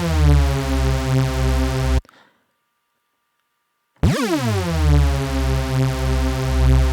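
Hoover rave-synth patch on Ableton Live's Drift synthesizer, played as two held low notes. Each starts with a downward pitch swoop and settles into a thick, pulsing tone from detuned unison voices. The first cuts off about two seconds in, and after two seconds of silence the second swoops in and holds.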